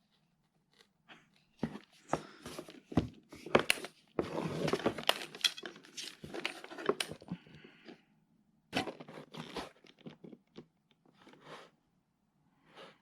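Rustling and crinkling of packaging with scattered light clicks and knocks as small tool accessories are handled, with a longer stretch of rustling from about four to seven seconds in.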